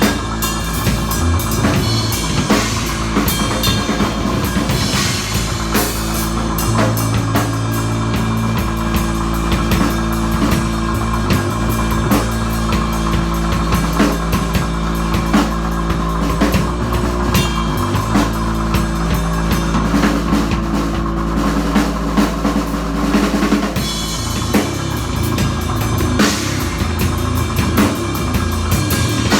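Rock music: a drum kit plays steadily over held low bass notes, with the low part changing about 7 seconds in and again near 24 seconds.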